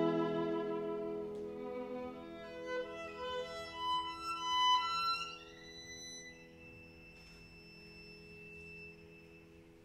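Solo violin playing a quiet, slow passage: notes climb to a single high held note that fades away toward the end, over low notes sustained beneath it.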